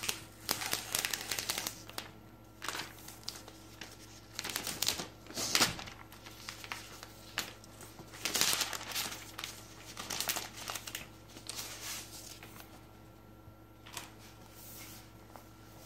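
Protective paper and thin plastic wrapping crinkling and rustling as it is peeled off a new laptop, in several bursts that thin out after about twelve seconds. A single light click near the end.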